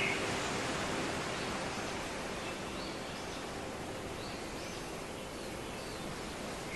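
Outdoor trail ambience: a steady hiss of background noise, with a few faint, high bird chirps in the second half.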